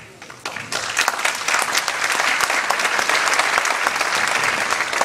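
Audience applauding: the clapping starts just after the speech stops, swells to full within about a second and holds steady.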